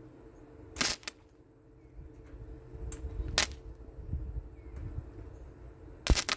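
Three brief crackling bursts from a flux-core wire welder striking an arc, each under half a second, as short tack attempts on the steel bucket rather than a running bead.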